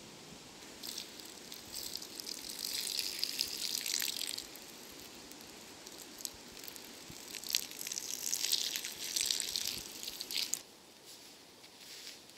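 Water poured from a stainless steel bottle onto the ashes of a campfire, splashing in two pours of about three seconds each, one starting about a second in and the other about seven seconds in: dousing the fire pit to put the fire out properly.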